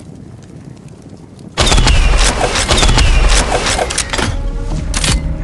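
Fireworks going off: a sudden loud burst about a second and a half in, then a run of rapid cracks and pops with a couple of short falling whistles over a low rumble.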